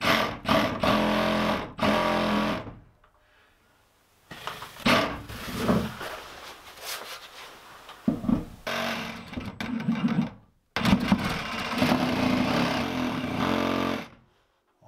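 Cordless power saw cutting through a wooden 2x wall stud. The motor runs in bursts that start and stop sharply: two short runs, a pause of about a second and a half, then a long cut with one brief break.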